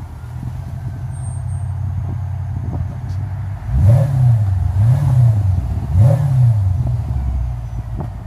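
Mercedes-Benz CL550's V8, fitted with one-chamber mufflers and no resonator, running low as the car creeps up and idles. About four, five and six seconds in it is blipped three times, the pitch rising and falling each time.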